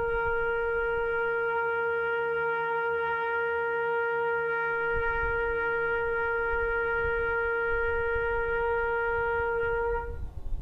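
A single long, steady note blown on a horn, held at one pitch for about ten seconds, then cutting off.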